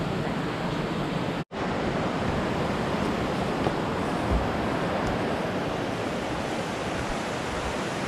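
Steady rush of fast-flowing mountain river water, an even wash of noise that cuts out for an instant about one and a half seconds in.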